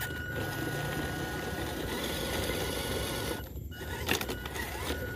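Small 180-size electric motor and stock plastic gearbox of a WPL RC rock crawler whirring as it drives, with a brief drop about three and a half seconds in.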